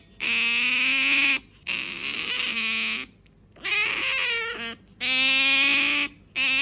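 Asian small-clawed otter giving drawn-out, wavering whining calls, about five in a row, each a second or so long with short breaks between.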